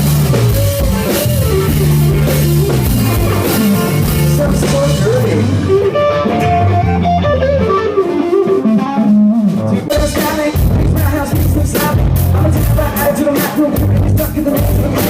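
Live band playing a rock-pop song with guitar and drum kit. The drums drop back about halfway through and come back in hard near ten seconds in.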